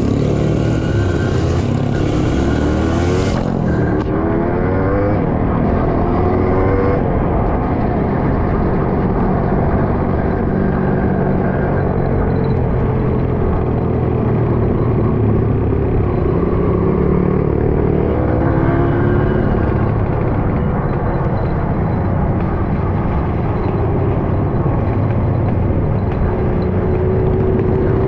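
Trail motorcycle engine running under way, its pitch rising and falling repeatedly with the throttle.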